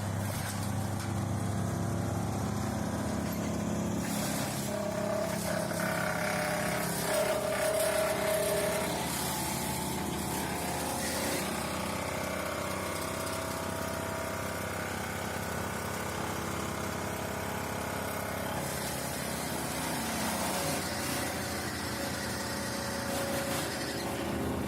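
Chevrolet V8 engine of a wood chipper running steadily. Its note shifts in pitch a few times, and a higher whine rises about five seconds in and lasts several seconds, loudest near eight seconds.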